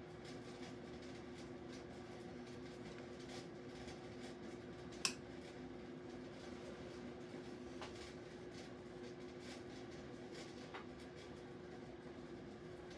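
Steady low hum in a small room, with one sharp click about five seconds in and two fainter clicks later: light switches turned off, first a desk lamp, then the workshop's overhead lights.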